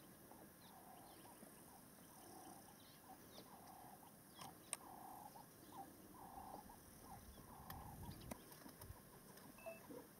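Faint bush ambience: a bird calls a series of short, low notes about once a second, with thin chirps from small birds and a few faint clicks.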